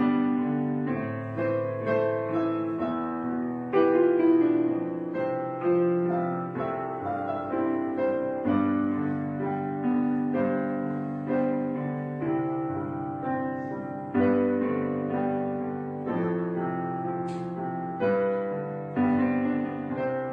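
Background piano music: gentle chords and single notes struck every half second to a second, each ringing and fading.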